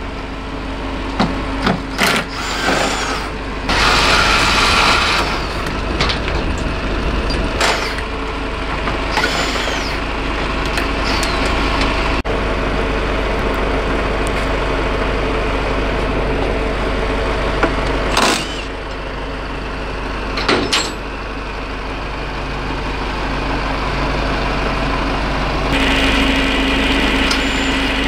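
A truck engine running steadily, broken by several short, loud bursts of mechanical noise, with a steady hum joining near the end.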